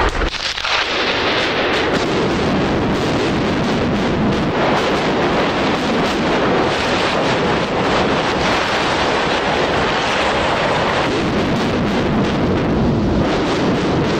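Explosive demolition charges go off with a sharp crack, then a loud, steady roar of concrete and rubble as high-rise tower blocks collapse and their dust cloud blows over the microphones.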